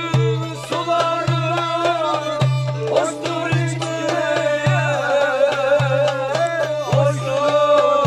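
Turkish folk music played by a small band: a wavering melody line over a steady drum beat and low bass notes repeating about once a second.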